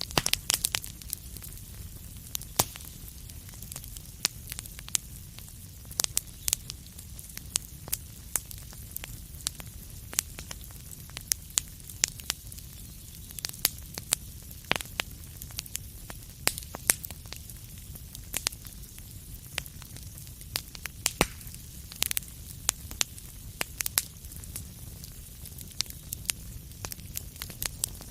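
Wood fire burning in a fireplace, with frequent sharp, irregular crackles and pops over a low steady rumble and hiss.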